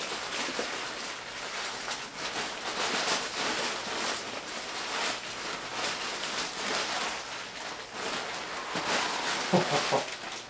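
Plastic packaging crinkling and rustling as a jersey is unwrapped and unfolded by hand, a dense run of small crackles.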